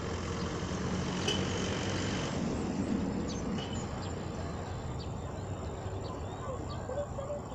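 Outdoor ambience: a steady low hum with a few faint, short chirps and small rustles.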